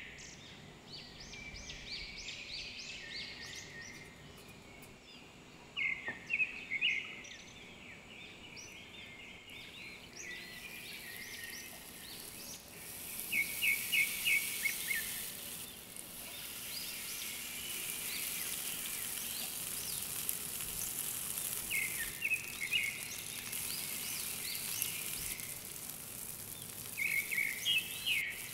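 Chicken tikka skewers sizzling on a hot grill pan, a steady hiss that begins about a third of the way in. Birds chirp in short bursts of quick notes every few seconds throughout.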